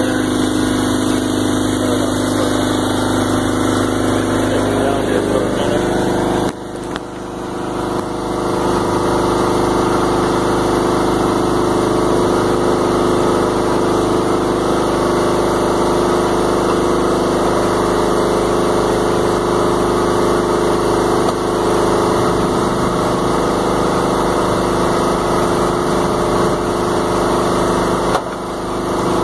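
An engine running steadily at a constant speed while the sprayer tank is being filled, with two brief dips in level, about six and a half seconds in and near the end.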